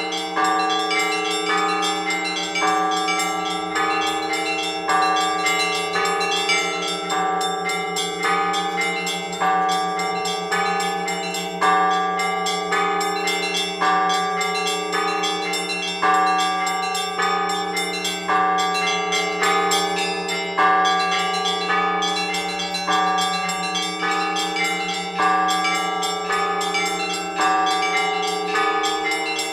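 Orthodox church bells rung together by one bell-ringer in a weekday chime. Smaller bells strike in a quick repeating pattern, with a heavier stroke about every two seconds over the steady low hum of the larger bells ringing on.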